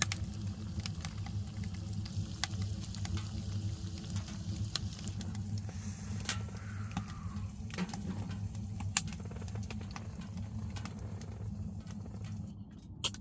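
Food cooking over a wood fire, with scattered crackles and pops over a steady low hum.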